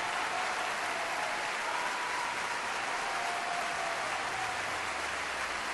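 A crowd applauding: a steady wash of clapping.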